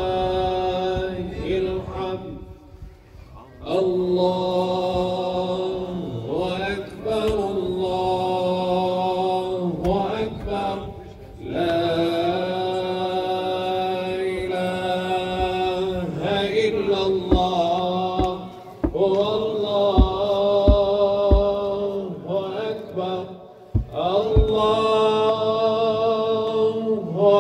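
Many men's voices chanting Islamic invocations in Arabic in unison, in long drawn-out notes with short pauses for breath. A few low thuds sound in the middle.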